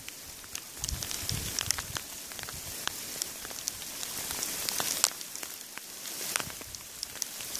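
Small hailstones falling on gravel and rock: a steady hiss scattered with many sharp ticks as individual pellets strike.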